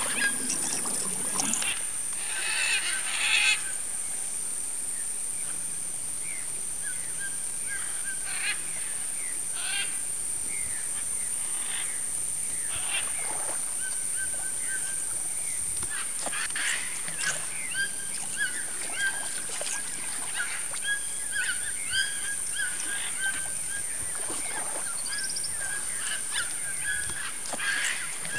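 Many wild birds calling: short chirps and squawks in quick succession, over a steady high-pitched drone.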